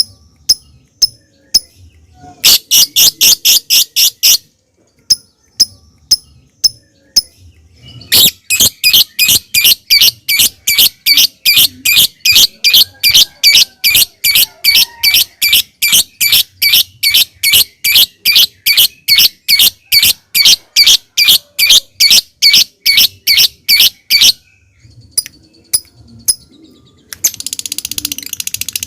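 A lovebird giving sharp, high-pitched chips, the 'ngetik' song. The chips come singly at first, then in a quick run about three seconds in, then as a long, even train of about three a second. Near the end it breaks into dense, continuous chattering, the start of the 'ngekek' trill.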